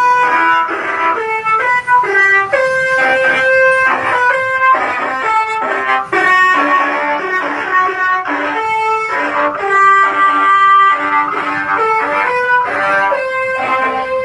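Basuri musical bus horn playing a tune: a loud run of short, separate horn notes, several tones sounding together and changing pitch note by note.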